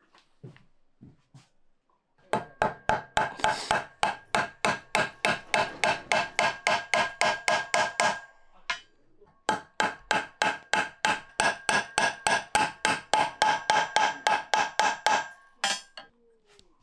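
Hammer blows on a hand-hammered metal pan, about four or five a second, in two runs of some six seconds each with a short pause between. Each blow leaves the pan ringing with a metallic tone.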